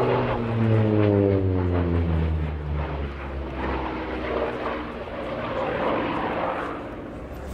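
Hawker Sea Fury T.20's radial engine and propeller droning in a display fly-by. The pitch falls over the first couple of seconds as it passes, then the drone runs on lower and a little fainter as it pulls away.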